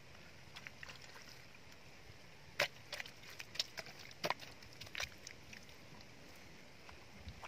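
Bare hand patting and smoothing wet mud around the rim of a buried clay jar, packing the seal: a cluster of sharp wet slaps between about two and a half and five seconds in.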